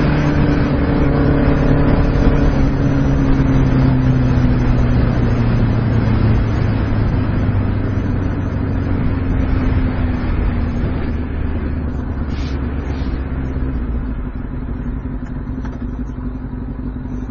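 2006 Kawasaki ZX6R 636's inline-four engine under way, its note falling slowly as the bike slows down, then running lower and quieter near the end.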